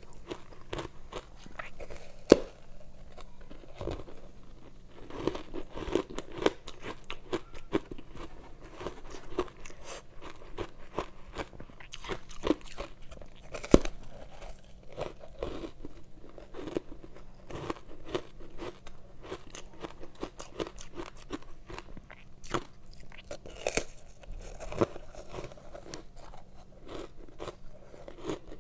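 Bites and chewing of ice coated in matcha green tea powder: a steady run of soft, powdery crunches, with two sharp, loud crunches about two seconds in and near the middle.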